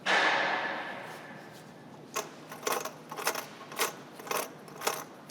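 A whoosh that fades over about a second and a half, then a run of short metallic clicks about twice a second from hand tools working on the car's air-conditioning compressor.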